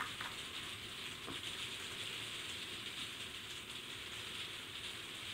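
Steady rain coming down: an even hiss of falling rain, with a couple of faint taps in the first second or so.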